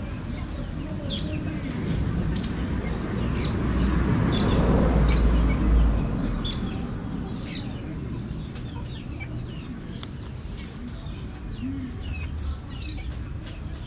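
Birds chirping, with chickens clucking, over a low rumble that swells to its loudest a few seconds in and then fades.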